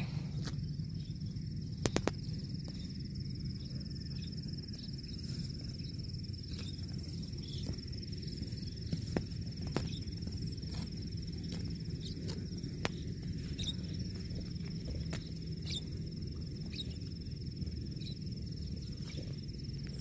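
Cow grazing: scattered short crunches and clicks of grass being torn and chewed, over a steady high drone of insects and a low outdoor rumble.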